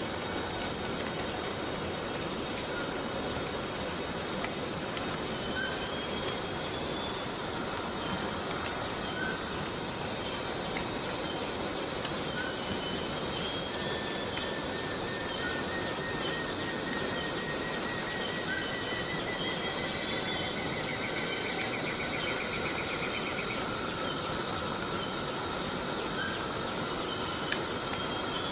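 Steady chorus of insects chirring at a high, constant pitch, with scattered short chirps and a faint rapid trill about halfway through.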